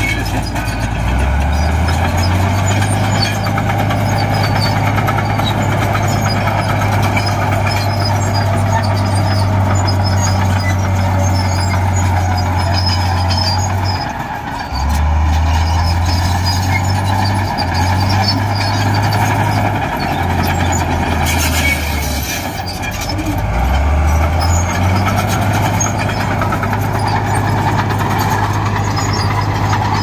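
Diesel engine of heavy earthmoving machinery running hard, its pitch stepping up and down several times as the throttle and load change, with a brief drop just after halfway and a rising rev about two-thirds of the way in.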